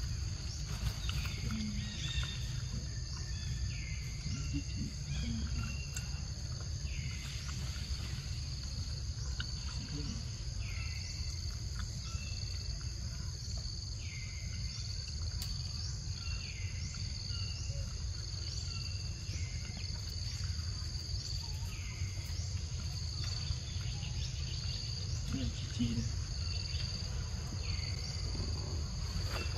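Tropical forest insect chorus, a steady high-pitched drone, with a short falling call repeated every second or two and a low rumble underneath.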